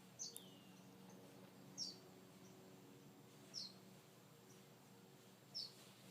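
Quail calling: four short, high calls about every two seconds, with a falling whistle just after the first. A faint steady low hum lies underneath.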